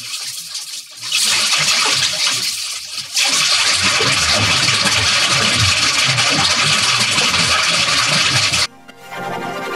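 Chainsaw running, heavily distorted by audio effects into a harsh, noisy buzz with a rough low pulsing. It gets louder about a second in and again about three seconds in, then cuts off suddenly near the end, where a quieter sound with steady tones takes over.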